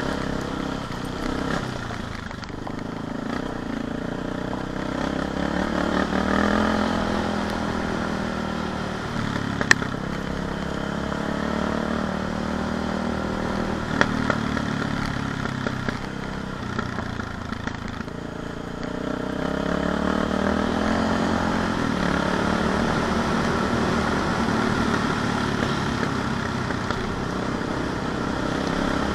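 CCM 644 R30 supermoto's single-cylinder four-stroke engine running at low revs, its pitch rising and falling as the throttle is opened and eased off. Two sharp clicks stand out, about ten seconds in and again around fourteen seconds.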